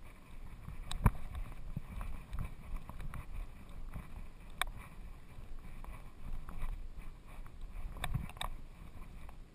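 Rumbling and rubbing noise from a GoPro strapped to a moving dog's back, with a few sharp clicks and knocks: one about a second in, one near five seconds, and two close together near eight seconds.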